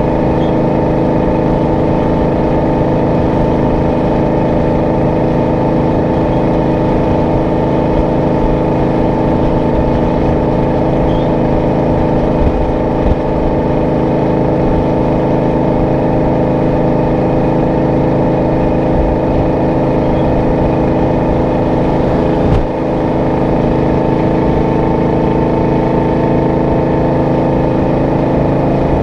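Kenworth W900A's Detroit Diesel 12V71, a two-stroke V12, running steadily at cruise through its twin exhaust stacks, holding one engine pitch. A single brief thump comes about three-quarters of the way through.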